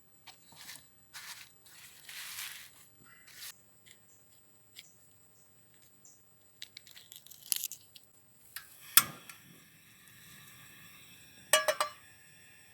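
Handling noises: rustling and crinkling, then a sharp clink about nine seconds in that rings on briefly, and a quick run of clinks near the end.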